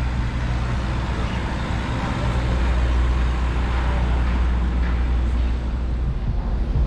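City street traffic noise with a steady low rumble, recorded from a moving scooter.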